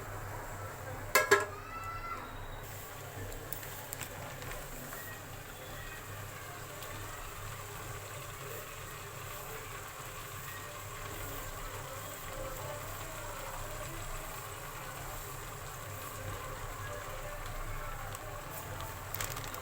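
Gajar ka halwa (grated carrots in milk) cooking down in a pot with a steady sizzle, and a sharp clank with brief ringing about a second in.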